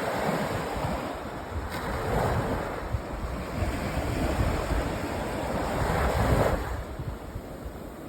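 Sea waves breaking and washing up a sand beach, with the surf swelling three times, the last swell near six seconds being the loudest. Wind buffets the microphone underneath.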